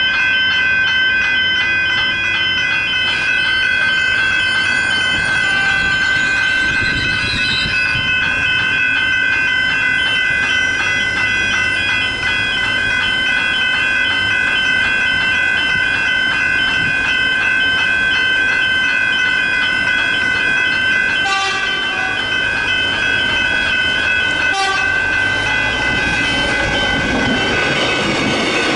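Level crossing warning bells ringing on and on in a steady electronic pattern while a train passes over the crossing, with the rumble of the train building up. The bells stop near the end.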